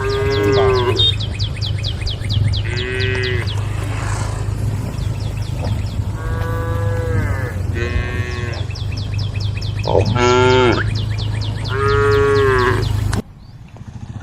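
Cows mooing in turn: about six drawn-out moos, each rising then falling in pitch, over a steady low hum. The sound drops away abruptly near the end.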